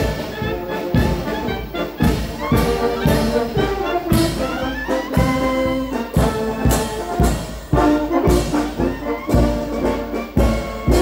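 Military brass band playing a march as it marches, with trumpets, trombones and low brass carrying the tune over a steady bass drum beat of about two strikes a second.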